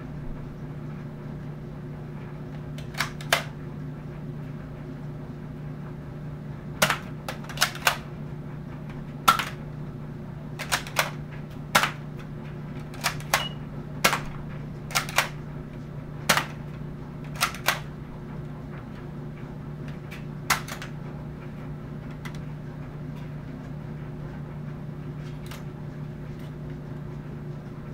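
Nerf blaster firing foam darts into a plasterboard wall: a series of sharp clicks and snaps, many in quick pairs, spread irregularly over about eighteen seconds and stopping near twenty seconds in. A steady low hum runs underneath.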